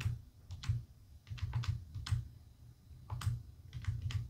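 Keys of a Casio desktop calculator being pressed one after another: a quick, uneven run of about a dozen dull taps as a long number is keyed in.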